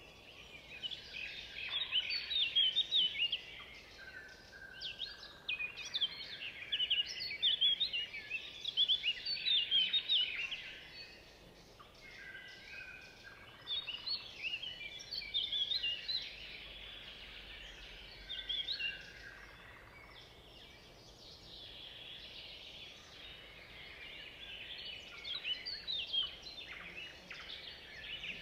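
Hot oil sizzling and crackling as sliced onions fry with browned meat in an aluminium cauldron. It is loudest in waves through the first ten seconds, then settles to a lower sizzle with occasional swells.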